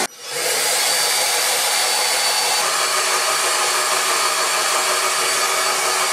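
Loud, steady rushing noise of a small electric motor driving a fan, with a faint steady high whine on top.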